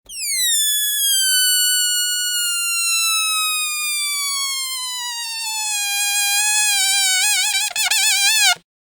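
Air escaping from a balloon's stretched neck in one long release: a high squealing whine that starts higher, slides slowly down in pitch, wavers near the end as the balloon empties, and cuts off suddenly after about eight and a half seconds.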